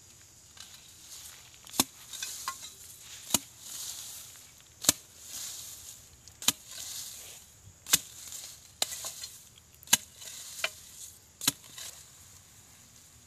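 Metal digging bar chopping into soil at the base of a plant to dig up sweet potatoes. About eight sharp strikes come roughly every one to one and a half seconds, with scraping and rustling of soil and leaves between them.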